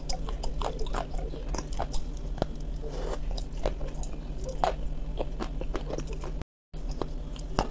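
Close-miked chewing of a cream biscuit, with many crisp crunches and mouth clicks over a steady low hum. It breaks off briefly for a moment of silence about six and a half seconds in.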